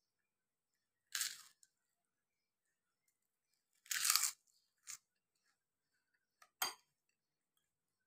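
Bites into a crispy kerupuk cracker: four short crunches, the longest and loudest about four seconds in.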